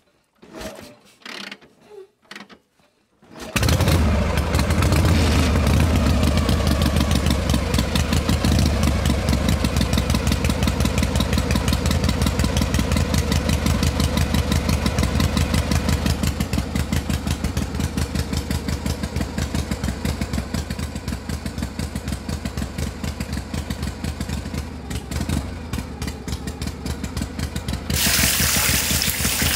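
A small stationary engine starts up after a few faint clicks about three and a half seconds in, then runs with a steady, rapid chugging. Near the end a hissing pour of liquid joins it.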